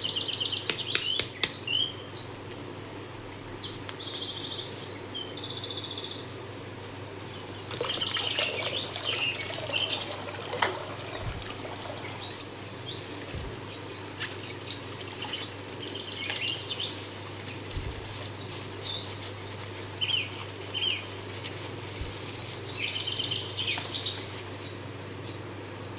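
Small birds chirping and twittering in many short, repeated phrases, over a steady low hum.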